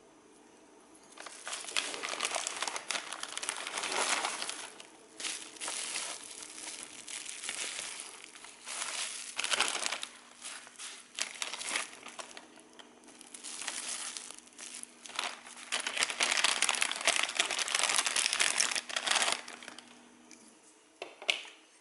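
Clear plastic packaging bags crinkling as hands open them and pull out the contents. The crinkling comes in bursts with short pauses, starting about a second in, and there is one brief last crinkle near the end.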